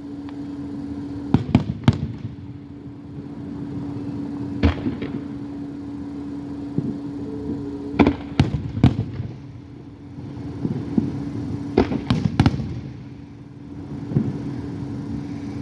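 Fireworks shells bursting, about ten sharp bangs coming in clusters of two or three a few seconds apart, over a steady low hum.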